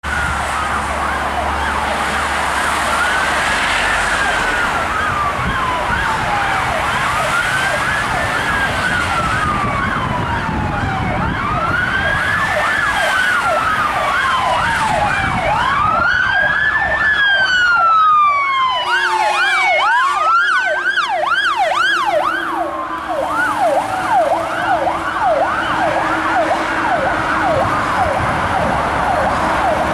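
Fire engine sirens on an emergency run: two sirens sound together, one in a slow wail that rises quickly and falls slowly every four to five seconds, the other in a rapid yelp. Heavy truck engines run low underneath.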